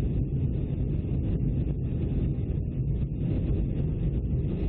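Steady low drone of an airliner cabin in flight: engine and rushing-air noise heard through the fuselage, even and unbroken.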